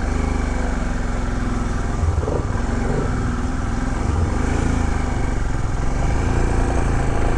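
Royal Enfield Himalayan's 411 cc single-cylinder engine running as the motorcycle pulls away and rides off at low speed, getting a little louder near the end.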